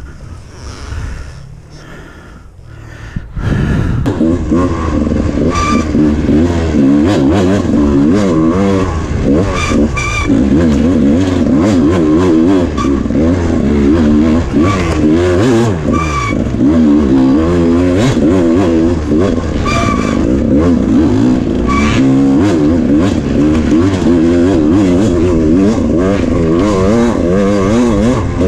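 Dirt bike engine, quieter for the first few seconds, then from about three and a half seconds in running hard, its pitch rising and falling again and again as the throttle is worked. There are occasional short knocks.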